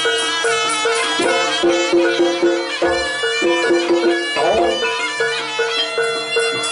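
Live jaranan music: a shrill reed pipe playing a held melody over gamelan percussion, with a quick repeated pitched-gong pattern of about four notes a second that steps down in pitch partway through.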